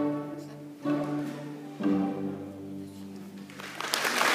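Student string orchestra of violins, cellos and basses playing three accented, held chords about a second apart, the closing chords of the piece. Audience applause starts to rise near the end.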